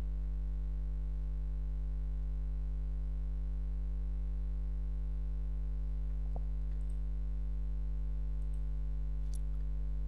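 Steady low electrical mains hum picked up by the recording, unchanging throughout, with a faint click about six seconds in.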